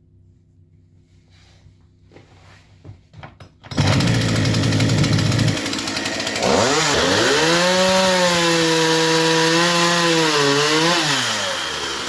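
Partner 350 two-stroke chainsaw starting suddenly about four seconds in and running, then revved up to a high, held pitch for several seconds before dropping back near the end. It is running on a carburettor rebuilt with a new gasket and diaphragm to cure a fuel-system fault.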